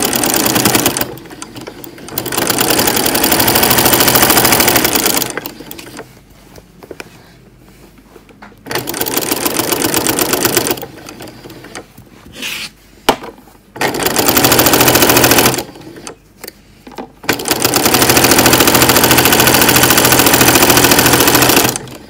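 Janome domestic sewing machine running a straight stitch along a fabric edge in five runs, each stopping and starting again after a short pause. There is a sharp click about 13 seconds in.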